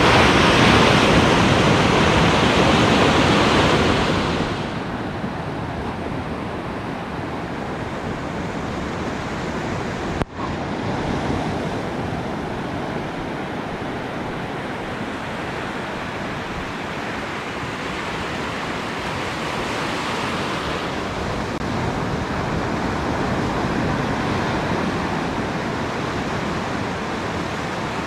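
Surf breaking and washing up a sandy beach, with wind on the microphone; louder for the first four seconds, then a steadier, quieter wash, broken by a brief dropout about ten seconds in.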